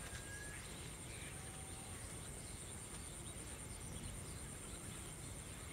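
Rural field ambience: a steady high-pitched insect drone over a faint low rumble, with a couple of brief bird chirps about a second in.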